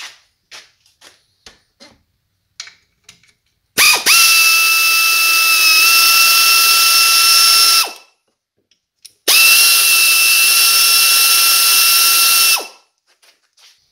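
Pneumatic air ratchet free-spinning long case bolts out of an ATV engine's clutch cover: two steady hissing whines of about four and three and a half seconds, each starting and stopping abruptly, after a few light clicks.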